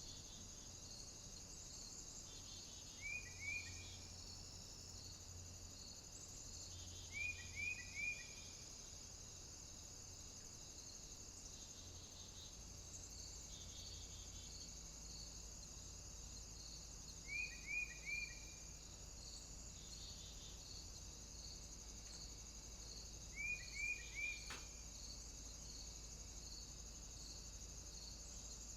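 Nature ambience: a steady, high chorus of crickets and other insects trilling, with a call of three quick falling chirps that comes back every few seconds.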